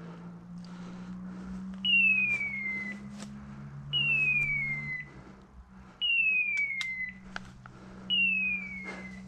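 Electronic beeper collar on a hunting dog sounding four identical falling, hawk-like whistles about two seconds apart, the repeating signal such collars give when the dog stops on point. Twigs snap and crackle in the brush between the calls.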